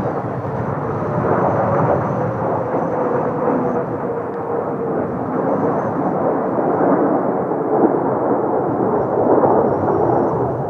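Formation of Kawasaki T-4 jet trainers flying past, their turbofan engines a loud steady roar, with a faint whine that slides slightly lower in pitch.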